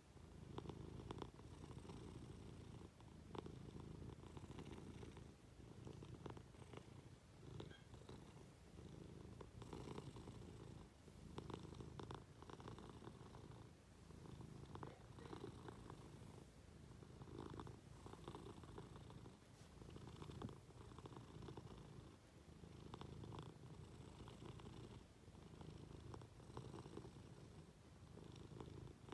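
A Munchkin cat purring close to the microphone, a soft low rumble that swells and eases with each breath, about every two seconds.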